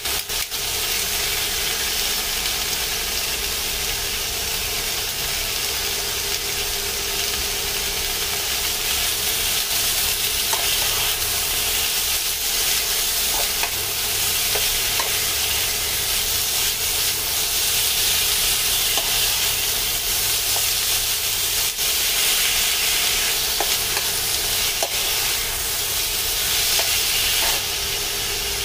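Chicken, ginger, wood ear mushrooms and carrots sizzling steadily in a hot frying pan as they are stirred and tossed with a silicone spatula, with a few light scrapes and taps against the pan.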